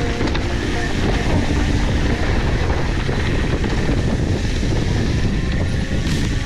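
Wind buffeting the camera microphone and a mountain bike's tyres rolling over a dry dirt trail on a fast descent, heard as a loud, steady rushing noise.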